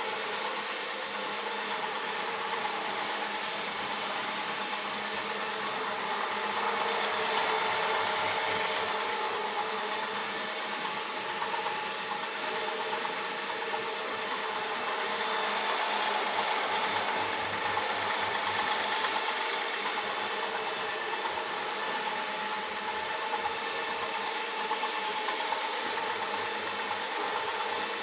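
Electric floor polisher running steadily, its rotating brush scrubbing a carpet, with a continuous motor hum under the noise of the brush.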